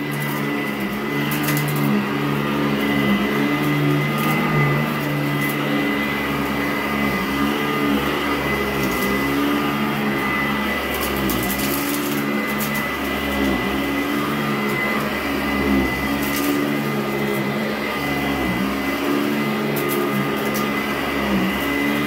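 Sanitaire SC899 direct-air commercial upright vacuum running on carpet. Its motor pitch dips briefly every second or two as it is pushed back and forth. Scattered sharp crunches and clicks come from debris being sucked through the fan.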